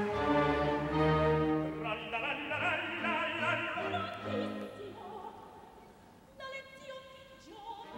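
Orchestra with strings accompanying operatic singing; a voice with vibrato rides over the strings in the first half. The music then thins out and grows quieter near the end.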